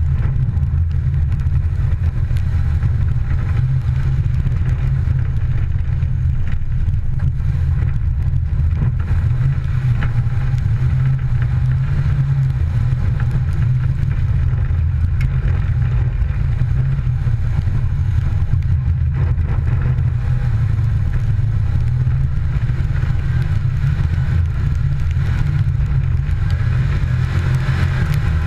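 Rally car's engine driven hard, heard from a camera mounted on the outside of the car, a steady low drone mixed with road and wind noise. Crackling spray noise comes in near the end.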